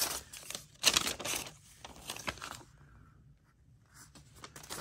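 Paper instruction sheets and nylon tent fabric rustling and crinkling as they are handled, in a few short bursts with the loudest about a second in and a brief lull past the middle.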